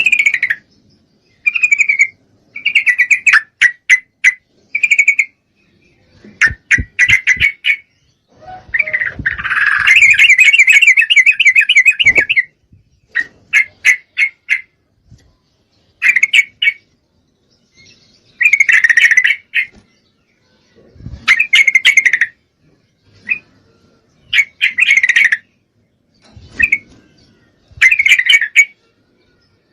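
Yellow-vented bulbul (trucukan) calling: short bursts of rapid, bubbly notes repeated every second or two, with one longer chatter of about three and a half seconds around ten seconds in. It is a hen's call meant to draw a male.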